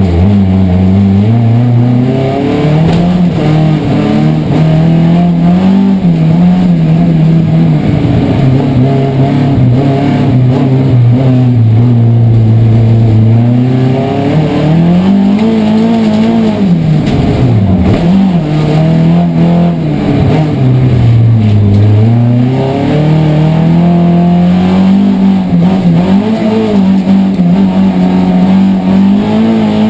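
Saab rallycross car engine, fitted with individual throttle bodies, heard from inside the cabin at racing speed, revving up and dropping back through the gears again and again, with deeper lifts off the throttle about two-thirds of the way through.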